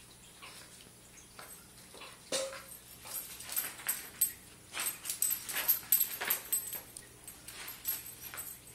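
A golden retriever puppy and an adult mixed-breed dog play-wrestling: scuffling with a run of quick taps and clicks, sparse at first and getting busy after about two seconds.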